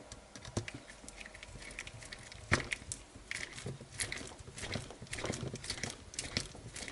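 Irregular small clicks and taps of hard parts and a hand tool being handled on an RC buggy chassis while parts are fitted, with one sharper knock about two and a half seconds in.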